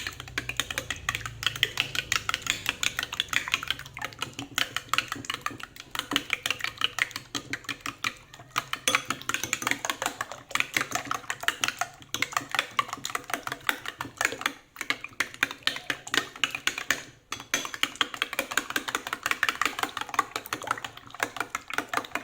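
Eggs being beaten in a bowl, a utensil clicking quickly and steadily against the bowl's side, with a few brief pauses.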